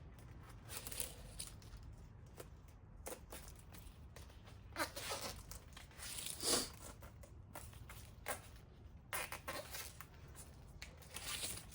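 Handlebar tape being stretched and wrapped around the bar, with the peeling of its adhesive backing paper: irregular soft rustles, tearing and scraping sounds. The loudest come about five and six and a half seconds in.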